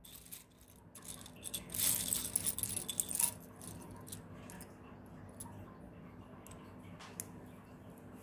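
Plastic LEGO bricks clattering and clicking against one another as hands rummage through a small pile. The clatter is densest and loudest for about a second and a half starting near the two-second mark, then thins to scattered single clicks.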